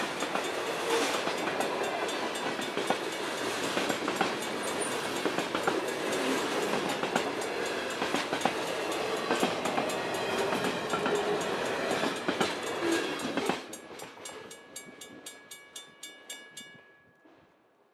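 Freight cars rolling past with wheel clatter and clicks over the rail joints. About thirteen seconds in the train sound falls away, leaving a grade-crossing bell ringing about five strikes a second, which stops near the end and rings out.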